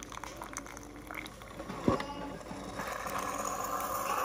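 Keurig single-serve coffee maker pouring a thin stream of coffee into a mug, the liquid noise growing louder about three seconds in. A single sharp thump just before two seconds in.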